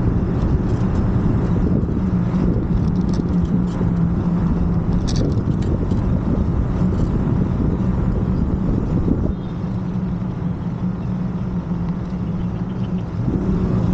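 Moped engine running with a steady hum, under heavy low rumble, dipping in level for a few seconds about two-thirds of the way through.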